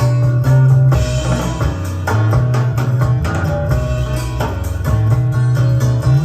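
Recorded rock music with bass, drums and guitar, played back from cassette tape on a Sony TC-K555ESL deck.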